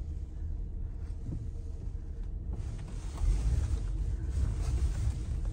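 Low rumble of a car driving slowly, heard from inside the cabin, growing louder about three seconds in.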